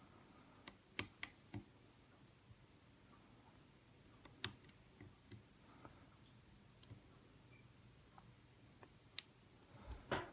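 Lock pick and tension wrench working the pins inside a Kasp 14040 six-pin padlock: scattered sharp, faint clicks as the pick lifts and sets pins, with the loudest clicks about a second in, around four and a half seconds in, and just after nine seconds.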